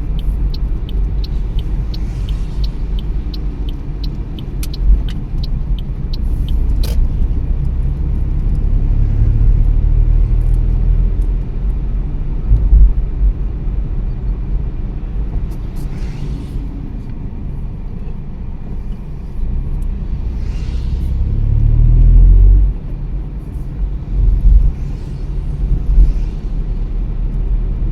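A car being driven, its low engine and road rumble steady throughout and swelling louder twice. Faint regular ticking about twice a second runs for the first five seconds, and there is one sharp click about seven seconds in.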